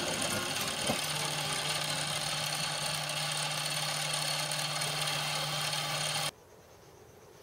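Small bench lathe running with a steady hum while a cut is taken on a spinning cast aluminium pillow block, with one sharp click about a second in. The machine sound cuts off abruptly about six seconds in, leaving only faint handling noises.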